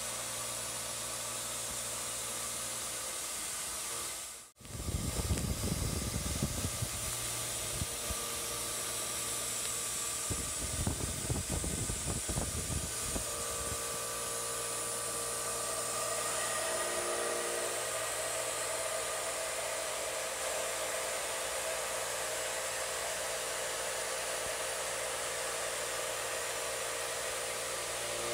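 CNC machining centre running a floor finishing pass in 4140 pre-hard steel with a 3/4-inch ball-nose cutter at 3200 RPM: a steady rushing hiss with faint steady tones. The sound drops out for a moment about four seconds in, and low rough rattling comes in two spells, near five to seven and ten to thirteen seconds in.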